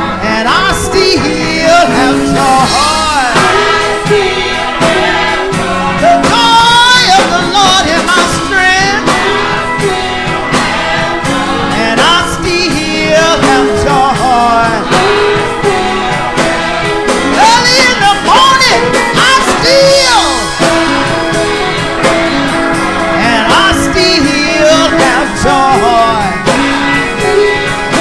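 Gospel song with a singing voice sliding through long runs over a band accompaniment.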